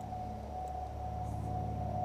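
Steady drone of a vintage propeller aircraft's piston engine, one of the old biplane types like a Tiger Moth, with a held steady note over a low hum.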